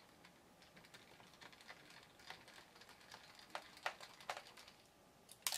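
Faint, scattered light clicks of a small screwdriver backing a tiny screw out of the plastic base of a Lenovo ThinkPad T410s. A few sharper clicks come about three and a half to four and a half seconds in, and a louder quick double click near the end.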